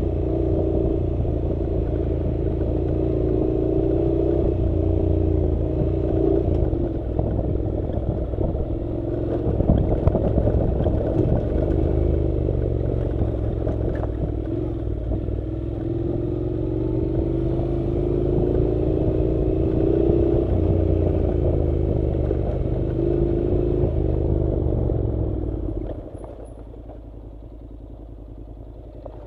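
Honda NC700 motorcycle's parallel-twin engine running as it rides a dirt road, its note rising and falling with the throttle over a rattling, clattering rumble. Near the end the sound drops much quieter.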